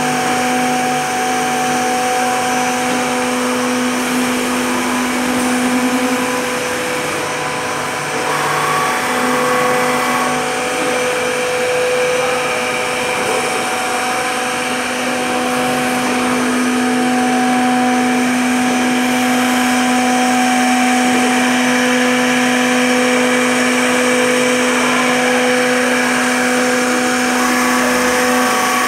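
Steady drone of running machinery: a constant low hum with a higher whine above it, over a broad hiss.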